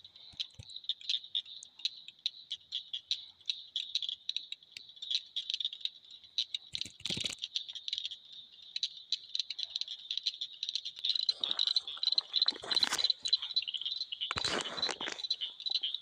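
A dense chorus of calling frogs: fast, irregular clicking at a high, steady pitch. A few louder rustling noises about halfway through and again near the end.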